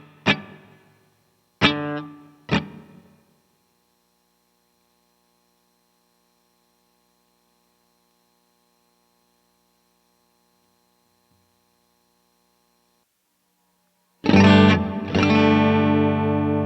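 Electric guitar played through a pedalboard of effects. Three chords are struck and decay over the first few seconds, leaving a long, faint ringing sustain. Near the end, loud, sustained distorted chords come in.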